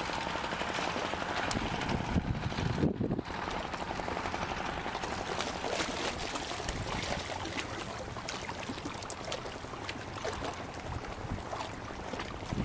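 Steady wind on the microphone over sea water washing and splashing against concrete breakwater blocks, with faint small clicks.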